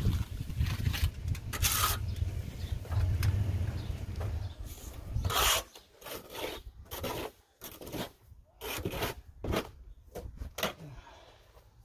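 Steel trowel scraping stucco mortar across metal lath while the first coat goes on: a run of continuous rasping strokes, then a few separate short scuffs about halfway through.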